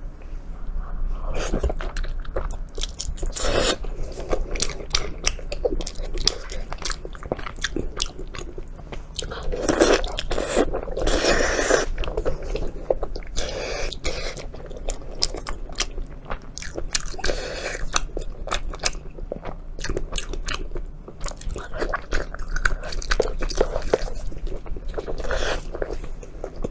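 Close-miked biting and chewing of beef tendon: a steady run of small clicks throughout, with the loudest bites about ten to twelve seconds in.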